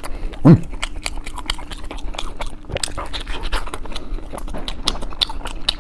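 Close-up chewing of a chicken-leg wrap with fried corn kernels: a steady run of sharp mouth clicks and crunches, with a short low hum about half a second in.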